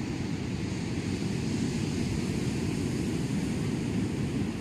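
Wind buffeting the phone's microphone: a steady, gusty low rumble. No distinct firework bangs stand out above it.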